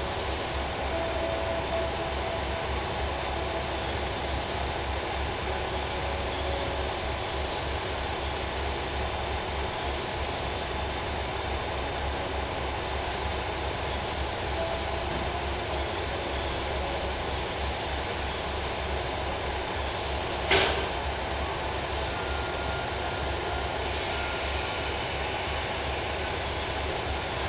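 KiHa 40-series diesel railcar idling, its engine a steady low pulsing rumble. About two-thirds of the way through there is one short, sharp burst of air hiss from the air brake system.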